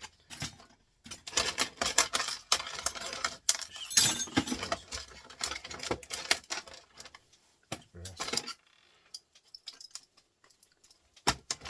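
Clicking and clattering of small metal printer parts being handled and pulled apart, in quick irregular runs, then only a few scattered clicks in the last few seconds.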